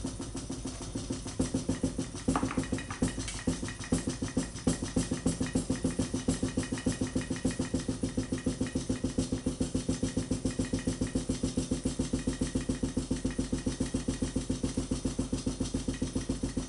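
Homemade free-piston Stirling engine, built from glass syringes with a magnet-levitated power piston, running with a fast, even beat of knocks as it runs down on its remaining heat after the flame is taken away. A few louder knocks in the first seconds, one sharp one about two seconds in, come from handling beside it.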